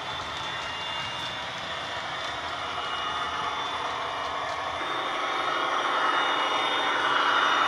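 Sound decoder in a Heljan Falcon model locomotive playing its diesel engine sound, modelled on the Maybach engine, through two megabass speakers. The sound is steady and grows louder in the second half as the model draws nearer.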